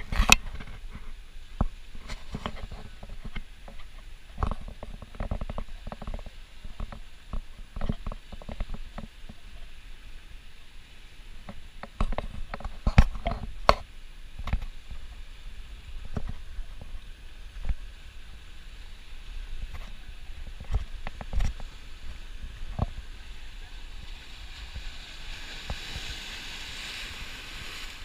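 Low gusty rumble with irregular knocks and clunks of a handheld action camera being carried over lava rock. Near the end, surf washing over the rocks comes up as a rising hiss.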